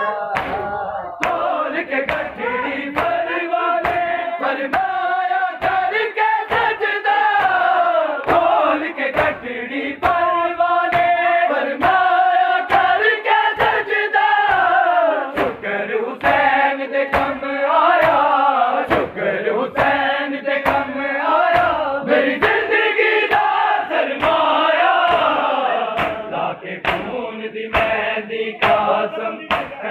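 A crowd of men chanting a noha together, with sharp slaps of hands striking bare chests (matam) in time, roughly once a second.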